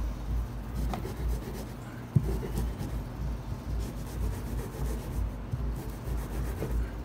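Stone hand roller (metlapil) rubbing back and forth over a stone metate in repeated grinding strokes, crushing roasted cacao beans toward a paste. A single sharp knock comes about two seconds in.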